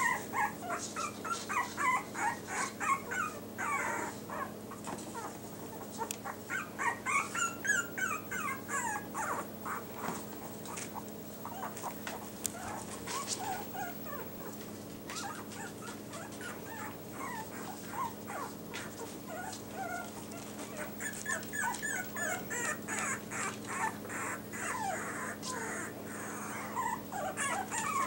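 Yorkshire terrier puppies making short high-pitched squeaks and whimpers in flurries, thinning out around the middle before picking up again.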